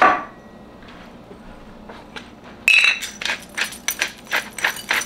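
A sharp clink at the very start. Then, from about two and a half seconds in, a handheld pepper grinder is twisted over a bowl, cracking peppercorns with rapid crunchy clicks, about five a second.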